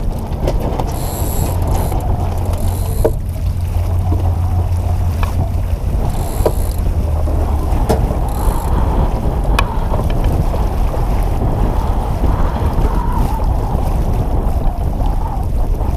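Wind buffeting the microphone and water rushing past the hull of a J-35 sailboat under sail. Over it come a few sharp knocks and four short bursts of ratcheting as a sheet winch is worked.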